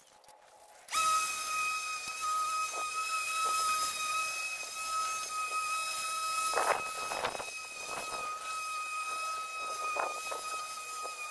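Ferrex cordless lawnmower's electric motor starting abruptly about a second in and running with a steady high-pitched whine, with a few brief louder rushes as it cuts.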